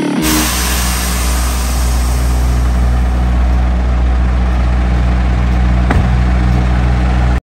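Scania truck's diesel engine idling steadily, a loud, even low hum, with a single faint click about six seconds in.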